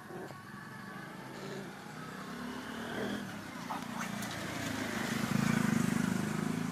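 A motor vehicle's engine running and growing louder as it approaches, loudest near the end.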